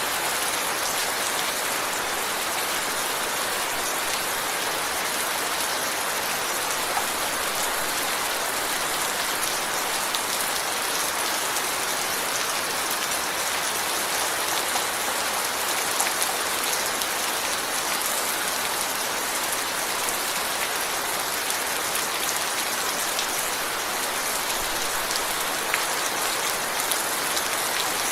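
Steady rain falling, an even hiss of countless drops with occasional sharper individual drop ticks.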